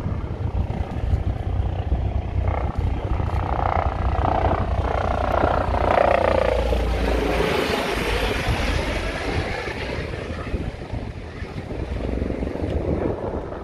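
Helicopter flying low past, its rotor and engine sound swelling to its loudest about six seconds in and dropping in pitch as it goes by, then fading. Wind rumbles on the microphone underneath.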